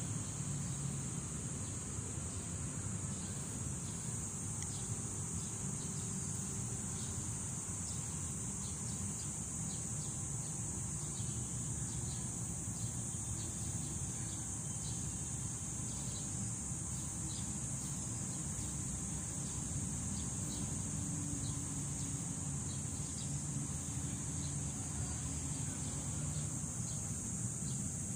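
Insects shrilling in one steady, unbroken high drone, over a low background rumble.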